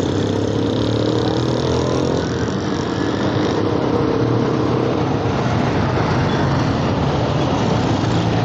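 Steady engine and road noise of a motorcycle riding through city traffic, with a distinct engine note in the first couple of seconds.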